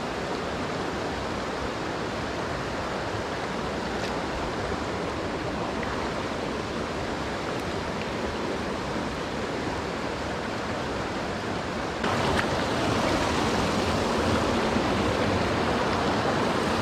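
A creek rushing steadily, getting louder about twelve seconds in.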